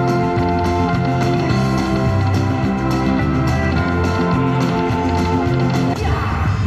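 Buffalo Cash slot machine playing its free-games bonus music, a tune of held notes over a repeating pattern. About six seconds in it breaks off into a different, sweeping sound as the bonus ends and the win is added to the credits.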